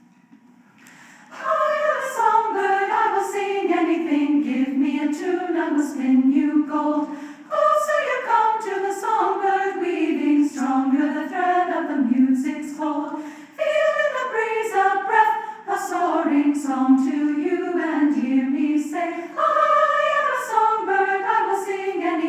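Unaccompanied choir singing in harmony, coming in about a second in. It sings falling phrases that begin again roughly every six seconds.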